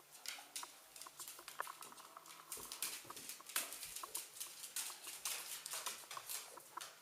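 Dogs scampering and scuffling at play, a Staffordshire bull terrier puppy among them: quick, irregular clicks and scrapes of claws and paws. The clicks grow busier about two and a half seconds in.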